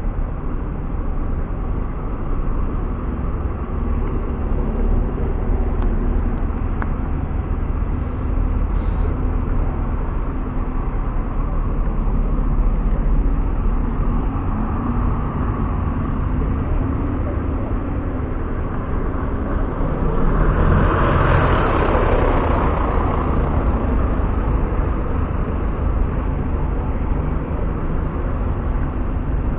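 Buses running and moving around a bus station, a steady engine rumble of traffic. About twenty seconds in there is a louder swell lasting a few seconds as a vehicle passes close.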